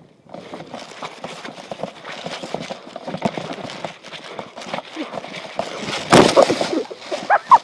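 Footsteps moving quickly over the ground with rustling and gear handling close to the microphone, with a louder burst of rustle about six seconds in.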